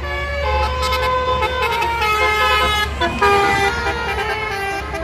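Tour bus's 'telolet basuri' musical horn playing a tune of held notes that change pitch every half second or so, over the low rumble of the passing bus.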